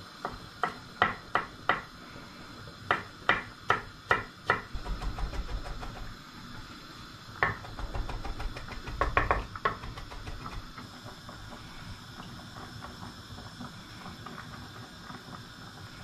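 Chef's knife chopping parsley on a wooden cutting board: runs of sharp, evenly spaced knocks of the blade against the board, with a faster, lighter flurry of chopping in between. The chopping stops about ten seconds in.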